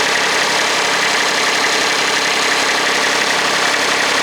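Kubota D1105 three-cylinder diesel engine in a MadVac 101D rider vacuum sweeper running steadily.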